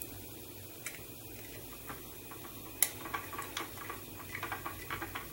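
Small screwdriver turning screws into a plastic-and-metal model car part: light clicks and ticks, with one sharper click about three seconds in and a run of small ticks after it.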